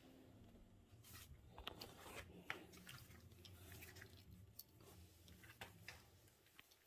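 Near silence, with faint scattered clicks and light rubbing from cable and machine parts being handled.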